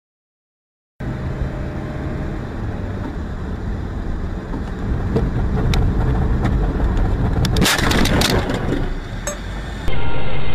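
Dashcam recording of a car on the road, with steady engine and road noise. About three-quarters of the way through comes a burst of crunching and cracking impacts, a car crash.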